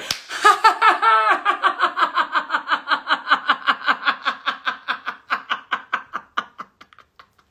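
A woman laughing heartily and deliberately as a laughter exercise: one long unbroken run of rapid 'ha-ha' pulses, about six a second, that fades away near the end.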